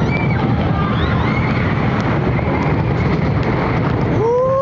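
Wind rushing over a phone's microphone and the rumble of the Python steel roller coaster's train on its track, loud and steady. Near the end a rider gives a rising-then-falling shout.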